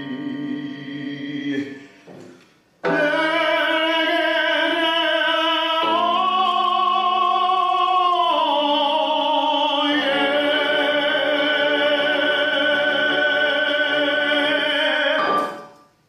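A man singing in a classical, operatic style. After a short break about two and a half seconds in, he sings a long sustained passage of held notes for about twelve seconds, which stops abruptly just before the end.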